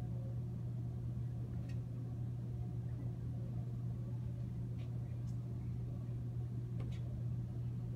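Steady low room hum, with a few faint, short strokes of a dry-erase marker on a whiteboard.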